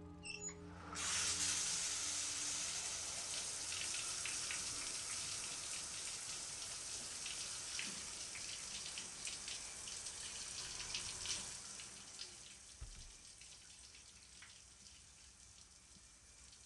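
Rushing water that starts suddenly about a second in and slowly fades away.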